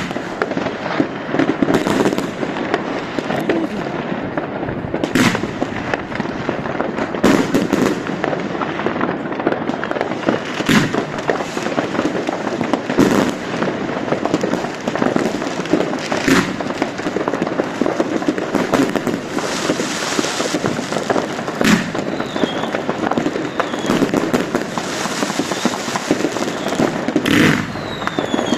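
Fireworks going off: continuous dense crackling with sharp bangs every few seconds and a few short whistles.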